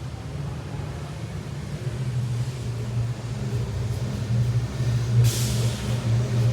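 A low, steady motor hum that grows louder, with a brief hiss about five seconds in.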